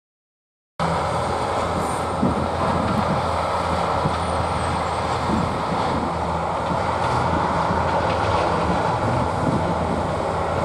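Steady vehicle engine and road noise, a low engine hum under an even rush, starting abruptly just under a second in.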